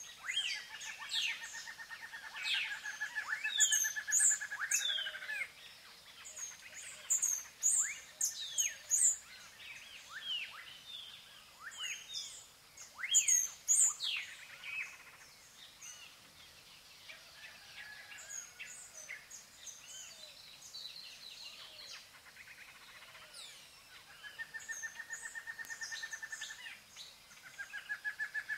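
Small birds calling around a hummingbird feeder. There are clusters of high, rapid twittering, many sharp down-slurred chirps, and a steady buzzing trill in the first few seconds and again near the end.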